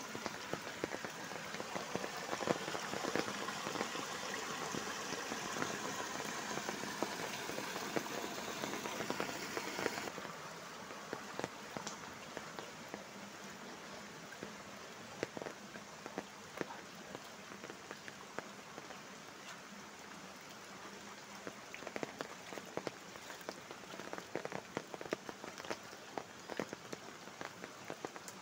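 Monsoon rain falling on standing floodwater and wet ground, a steady hiss dotted with the ticks of single drops. It is heavier for the first ten seconds or so, then lighter after a sudden drop.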